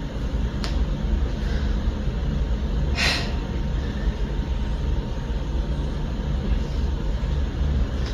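Steady low rumble, with a faint click under a second in and a short burst of hiss about three seconds in.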